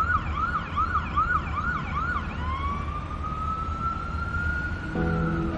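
Emergency vehicle siren in a fast yelp, a rapid rising sweep repeating about two and a half times a second. A little over two seconds in it switches to a single slow rising wail. Music comes in near the end.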